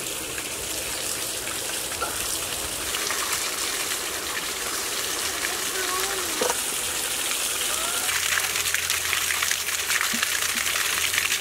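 Water gushing and splashing steadily, growing louder about eight seconds in.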